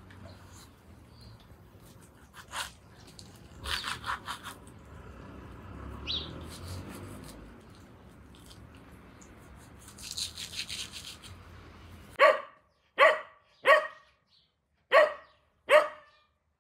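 Soft rubbing and handling of a raw lamb carcass by hand, with a few brief rustles and faint bird chirps. About twelve seconds in, a cocker spaniel barks five times, each bark short, loud and high-pitched, about a second apart.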